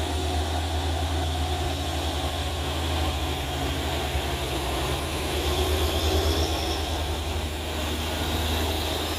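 Heavy diesel trucks, Hino box trucks among them, climbing a steep grade slowly under heavy load: a deep, steady engine drone.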